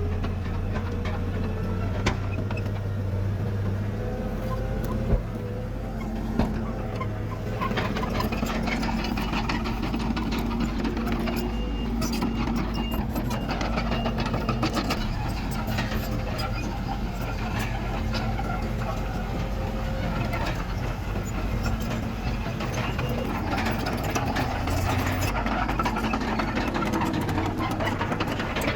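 Heavy diesel engine of earthmoving machinery running steadily, with a few short knocks in the first several seconds.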